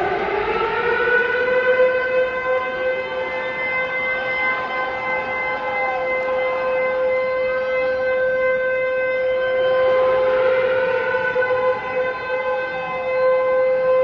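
A siren-like wail: one tone that rises in pitch about a second in, then holds steady at one pitch.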